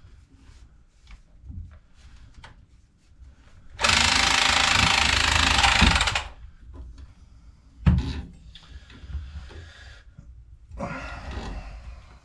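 A power tool runs steadily for about two seconds, starting about four seconds in, amid clicks and clanks of tools being handled. There is a sharp knock near eight seconds.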